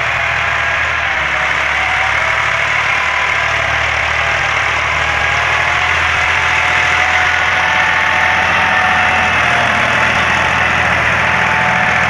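Massey Ferguson 260 turbo tractor engine running steadily under load while it pulls a rotary tiller through the soil. It grows a little louder about halfway through as the tractor comes closer.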